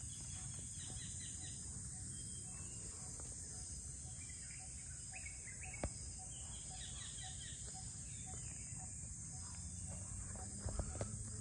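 Steady high-pitched drone of insects, crickets or cicadas, with short bird chirps scattered through it. A faint low note repeats about twice a second, and there is a single sharp click about six seconds in.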